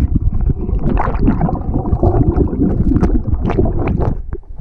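Stream water churning and gurgling around a camera swept along in the current, its microphone partly underwater, with many knocks and bumps as the camera tumbles.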